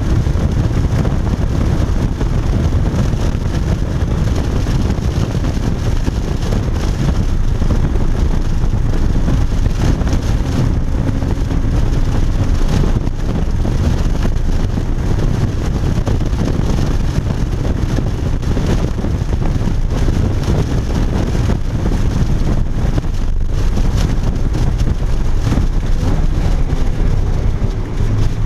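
Porsche Cayman GTS's 3.4-litre flat-six running at speed, heard from inside the cabin. Its note is buried in a steady, loud rumble of road and wind noise.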